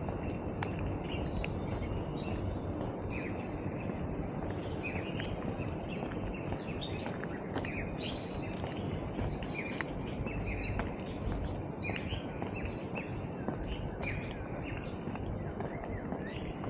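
Birds calling with short chirps that sweep downward in pitch, repeated many times and coming more often in the second half, over a steady background rush and a faint high, even insect-like tone.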